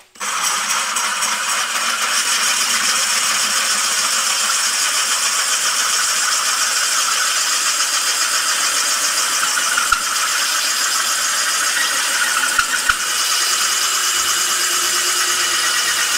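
Drill spinning a wet diamond hole saw, grinding into porcelain tile through a wooden guide block: a steady grinding whir that starts abruptly and runs without a break.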